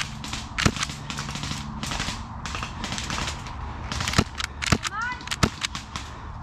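Airsoft gunfire: irregular sharp cracks and snaps of BB guns firing, several in quick succession at times. A short high chirp sounds near the five-second mark.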